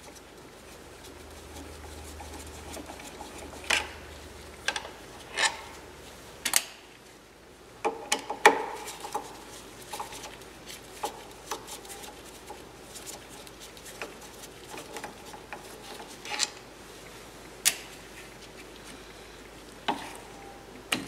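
Scattered sharp clicks and taps of a screwdriver and small metal parts knocking against the metal housing of a diesel coolant heater as it is taken apart and screws are backed out. The loudest clatter comes about eight and a half seconds in.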